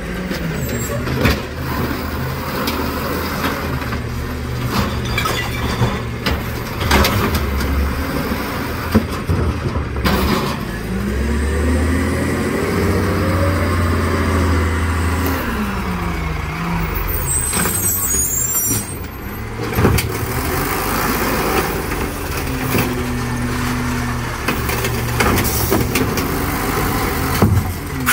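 Natural-gas Mack automated side-loader garbage truck pulling up to the curb: its engine revs up and down as it moves and stops, with a sharp air-brake hiss about two-thirds of the way through.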